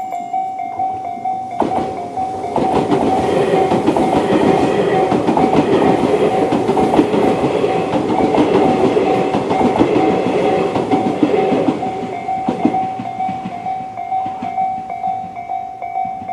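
Level-crossing electronic warning bells, the Tobu-type bell tone, ringing steadily. About two seconds in, a Tobu 200 series electric train rushes through, its wheels clattering rhythmically over the rail joints for about ten seconds. The bells keep ringing after it has passed, then cut off as the crossing clears.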